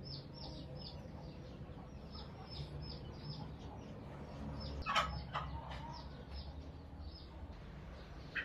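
Birds peeping in a steady run of short, high, falling notes, about three a second, over a low background hum. One brief, louder, sharp sound comes about five seconds in.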